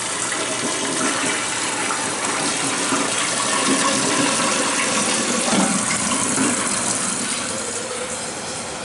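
Toilet flushing: a loud, steady rush of water down the bowl that eases off slightly near the end.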